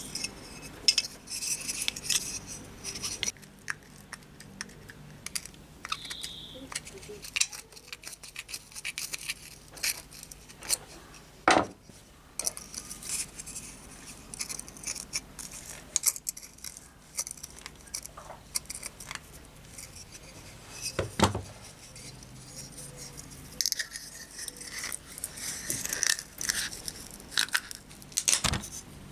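Thin sheet-metal lantern parts being handled, with irregular clinks, taps and light metallic rattles. A few sharper knocks come about a second in, near the middle, and toward the end.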